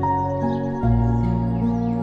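Calm new-age background music: held, soft notes over a low bass, changing chord about once or twice a second, with faint bird chirps mixed in.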